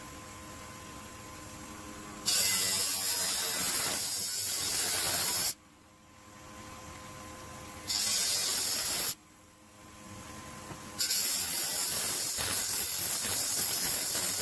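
Small DC motor spinning a sanding disc with a steady whir, then a plywood edge pressed against the disc three times, each time a loud abrasive hiss of sandpaper grinding wood that stops abruptly when the piece is pulled away.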